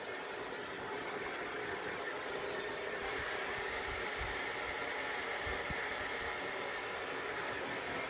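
Hair dryer running steadily, a continuous blowing whir.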